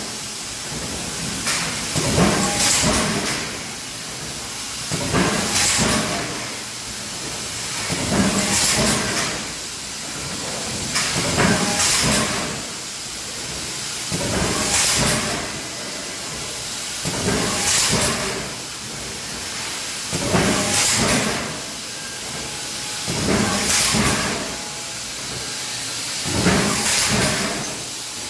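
TMP Voronezh KB8043 mechanical hot forging press running through repeated strokes, about one every three seconds. Each cycle brings a hissing burst of about a second over the press's steady running noise.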